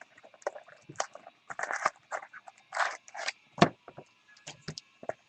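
Trading cards and their packaging being handled: irregular scrapes and rustles of card stock and plastic, with light clicks and a sharper knock about three and a half seconds in.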